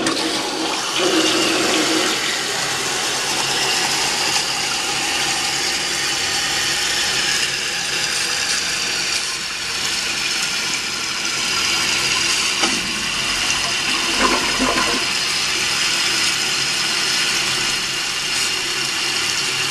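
1973 American Standard Cadet toilet flushing and its tank refilling with the lid off: a steady, noisy rush and hiss of water through the fill valve.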